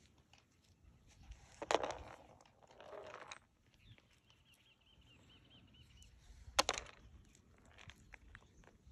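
Hands picking acorns out of dry leaf litter and gravel: faint rustling and scraping, with two sharp clicks, one about two seconds in and one after about six and a half.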